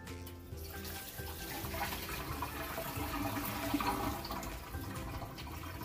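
Pork and water simmering in a wok, a hissing, bubbling noise that swells through the middle and eases near the end, with quiet background music.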